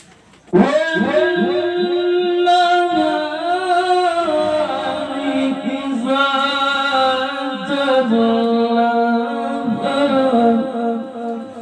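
A male Qur'an reciter (qari) chanting a long melodic tilawah phrase in one breath. It opens with quick rippling turns in pitch, then moves through long held notes that step between pitches, and fades at the end.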